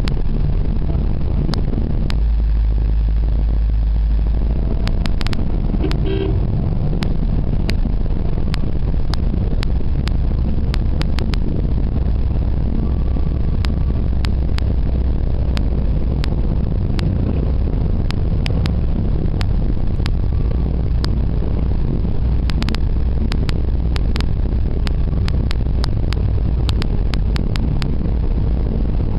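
Steady low rumble of a vehicle driving at road speed, heard from inside the cabin, with road and wind noise and many short sharp clicks and rattles scattered throughout.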